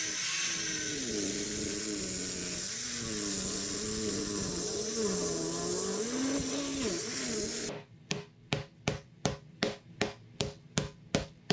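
4.5-inch angle grinder with a segmented masonry blade cutting into a thin concrete floor, its motor pitch sagging and recovering as the blade bites. It cuts off suddenly near the end, followed by quick hammer blows on the concrete, about three a second, busting up the slab.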